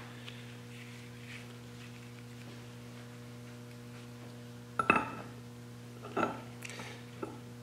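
Steady low electrical hum, broken about five seconds in by a sharp metallic clink that rings briefly, then a few lighter clinks, as the overdrive's steel output flange is handled and set back onto its splined mainshaft.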